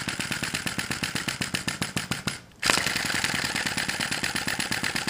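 Sai Hu V1-45 flame-licker vacuum engine clattering in a rapid, even run of clicks as its flywheel is spun by hand and the engine tries to run, its fire not yet set right. The clicking stops briefly about two and a half seconds in, then starts again.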